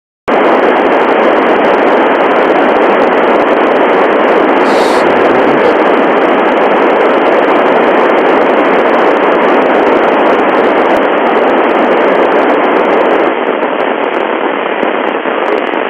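FM static from an Icom IC-9700 tuned to a satellite's FM downlink with the squelch open: a loud, steady hiss limited to the voice band, cutting in abruptly just after the start. About thirteen seconds in the hiss drops a little in level.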